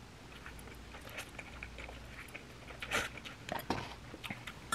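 A person chewing a mouthful of cheese instant noodles close to the microphone: soft wet mouth clicks and smacks, with a few louder smacks about three seconds in.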